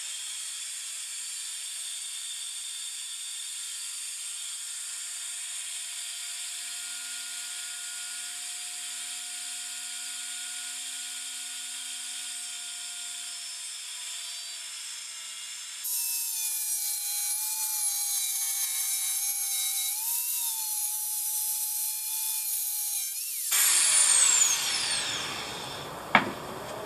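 Dremel Saw-Max mini circular saw cutting through a wooden panel: a steady high-pitched whine and cutting noise. About two-thirds of the way in it grows louder with a wavering whine. Near the end the motor winds down with a falling whine, and a single knock follows.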